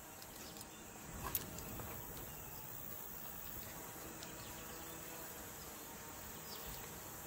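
Faint, steady high-pitched chirring of insects, with soft rustling and a few light clicks as a wipe is rubbed over a metal horse bit.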